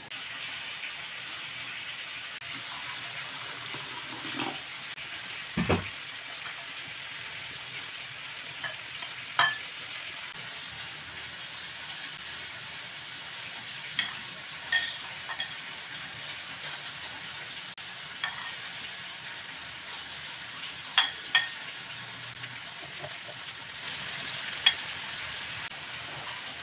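Rice being washed and drained: water and wet grains hiss steadily in a stainless steel mesh strainer, with a dull knock about six seconds in and a few light clinks of a glass bowl against the metal.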